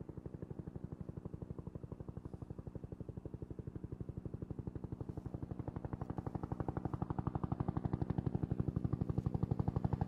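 Bell UH-1 Huey helicopter's two-blade main rotor beating out its rapid, even 'whop', growing steadily louder.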